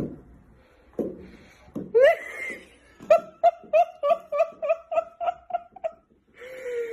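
A person laughing: a quick run of short, high giggles at about four a second, lasting about three seconds, after a rising voiced sound. Two soft knocks come in the first second.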